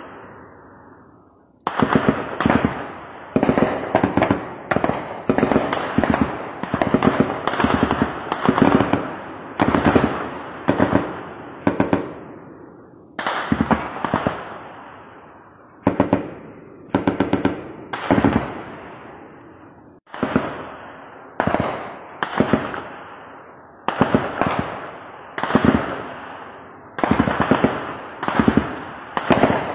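Repeated bursts of automatic gunfire, one every second or two. Each burst is a quick string of shots followed by a long echo rolling away.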